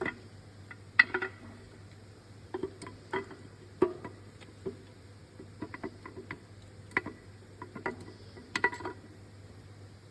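Irregular light metallic clinks and knocks as a steel camshaft is worked by hand out of a Ford GPW engine block, its lobes touching the block as it slides out. Over a faint steady low hum.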